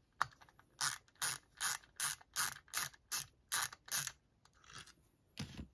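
Small hand ratchet clicking in short, even strokes, about two or three a second, backing out the screws that hold the alternator's housing together. A dull thump near the end.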